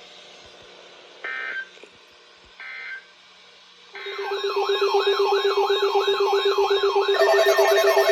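Two short bursts of EAS digital data tones, the end-of-message code closing the marine warning. About four seconds in, a loud electronic siren-like alert tone starts: a pitch sweeping up and down about three times a second over a steady low tone, with a second steady tone joining near the end.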